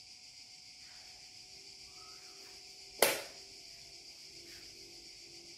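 Steady high-pitched buzz of cicadas, with one sharp knock about three seconds in.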